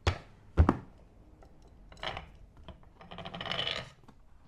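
Hand tools working on metal as the Broncbuster housing on a steering rack is taken off: two sharp clinks at the start, a short scrape about two seconds in, then about a second of rapid clicking near the end.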